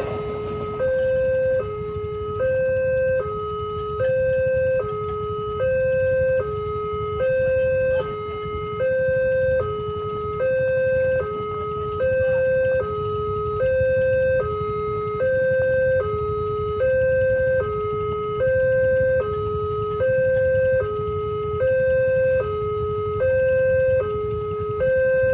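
Railway level-crossing warning alarm sounding a steady two-tone high-low pattern, each tone held about 0.7 seconds and repeating without a break, over a low steady rumble.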